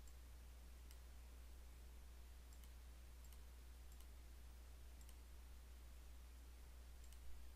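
Faint computer mouse clicks, a handful spaced a second or so apart and some in quick pairs, over a steady low hum.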